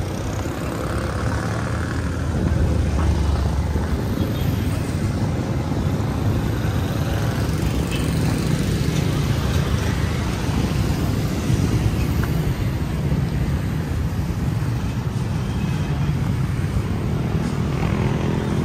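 Street traffic: motor vehicles running and passing, a continuous engine rumble with a heavier low rumble in the first few seconds.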